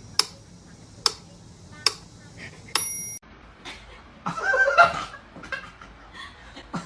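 Sharp ticks with a faint bell-like ring, about one a second, stopping suddenly about three seconds in. Then a person gives a short laugh, with a few small knocks.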